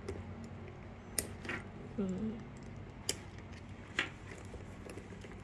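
Metal snap hooks on the shoulder strap of a 3.1 Phillip Lim Pashli Nano leather satchel clicking and clinking as they are clipped onto the bag's rings: several sharp clicks, the loudest about a second in and again about three and four seconds in.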